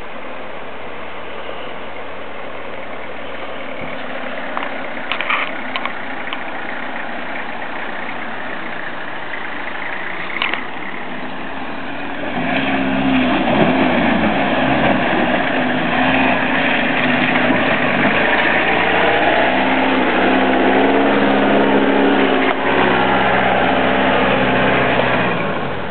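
Steady rush of creek water. About twelve seconds in, a vehicle's engine comes in loud, revving up and down under load as it drives through the creek crossing, then fades away just before the end.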